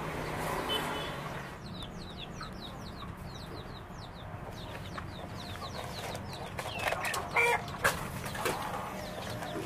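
Chickens calling: a steady run of short, high, falling peeps, several a second, with a few louder clucks about seven to eight seconds in.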